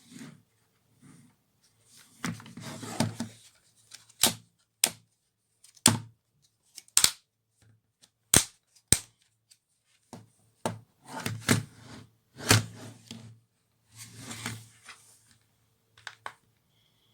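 Handling noises: a series of sharp clicks and knocks, with three short bursts of rustling.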